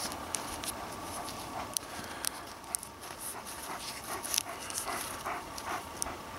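A dog panting close to the microphone, with scattered light clicks and crackles from duct-tape goggles being handled.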